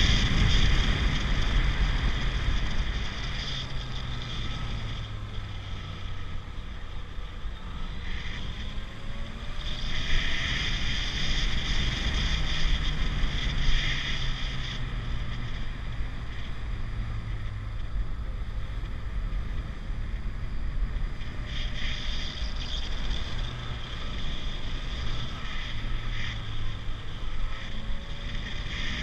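Sport motorcycle engine running at low speed, its note shifting with the throttle, under wind noise on the microphone. The wind rumble is heaviest in the first couple of seconds and eases as the bike slows.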